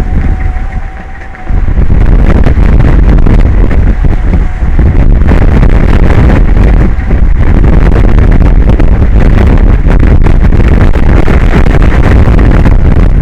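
Strong wind buffeting the microphone, a loud, gusty rumble that surges in about a second and a half in and keeps going.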